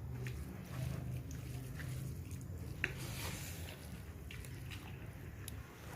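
Mukbang eating sounds: chewing, with scattered small clicks of food and dishes over a low steady hum.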